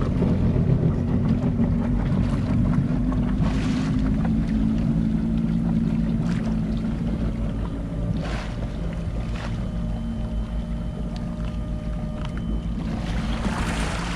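Sportjet jet-drive tender's engine running as it pulls away, with the churn and splash of its jet wash; the low engine hum weakens about halfway through as the boat moves off.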